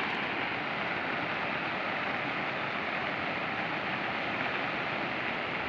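Steady rushing of a river in flood, fast muddy water pouring past in a continuous, even hiss.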